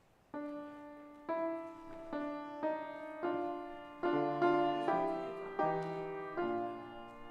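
Piano playing a slow melody over chords, starting about a third of a second in, each note struck and fading before the next.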